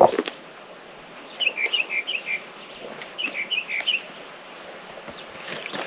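A thud right at the start, then a songbird singing two short phrases, each a quick run of about seven or eight chirping notes, a little over a second apart.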